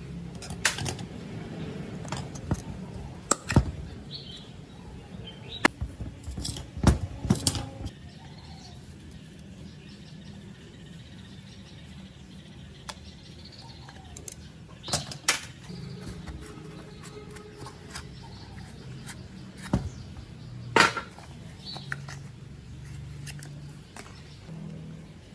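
Sharp metallic clicks, taps and scrapes of a steel screwdriver prying at the rusty sheet-metal terminal cover and casing of an old air compressor's electric motor. The knocks come thick and fast in the first several seconds, then only a few more, around the middle and about three-quarters of the way through.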